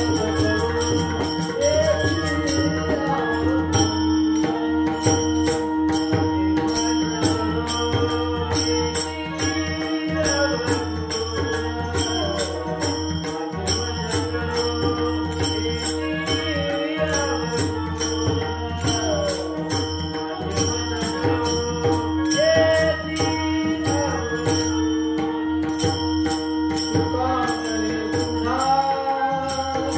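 Indian devotional music: a steady drone under a wavering melody, with a fast, even jingling rhythm on top.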